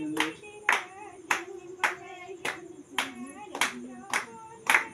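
Group of voices singing a wavering melody together, with sharp claps keeping an even beat about twice a second.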